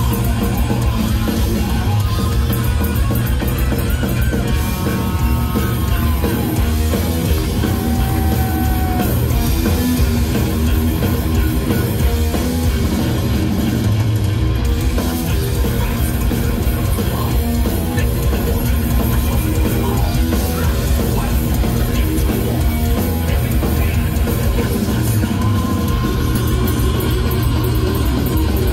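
Heavy metal band playing live over a big outdoor PA: distorted electric guitars and drums, loud and unbroken, heard from the crowd.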